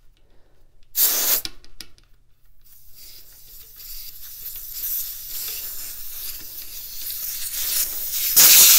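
Air hissing out at a bicycle tyre valve as a mini pump's head is unscrewed. There is a short burst about a second in, then a steady leak that grows louder and ends in a loud rush of air near the end; the valve core tears out with the pump head.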